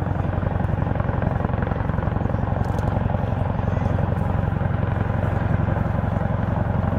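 Boeing Chinook tandem-rotor helicopter flying with a slung firefighting water bucket: a steady, rapid rotor-blade chop over a deep, continuous drone.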